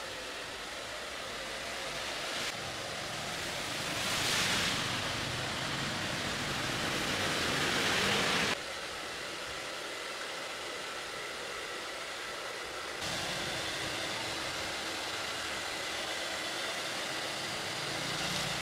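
Handheld electric hair dryer running, a steady rush of blown air with a faint motor whine. Its level jumps abruptly a few times, loudest in the middle of the stretch.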